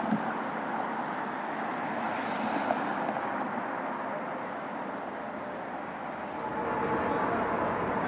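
Steady vehicle and traffic noise, an even rush with no distinct events; a faint steady tone joins near the end.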